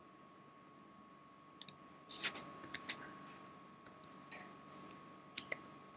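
Computer keyboard typing and mouse clicks: a scattering of short sharp taps, the loudest cluster about two seconds in, a few more near the end, over a faint steady high-pitched hum.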